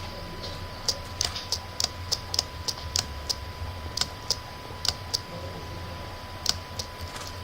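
Irregular sharp clicks or taps, about two a second with a short pause after the middle, over a steady low hum and a faint steady high tone.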